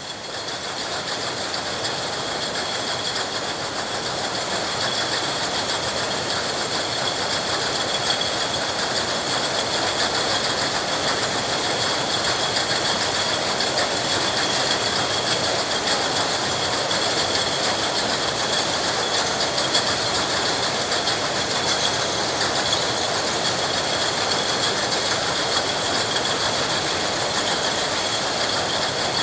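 Machinery in a milk bottling plant running steadily: a dense mechanical clatter with several high, steady whining tones above it. It swells up over the first second or two, then holds level.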